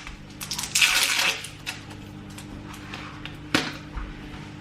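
Kitchen handling noises: a short rustling hiss about a second in and a single sharp click a little past three seconds, over a steady low appliance hum.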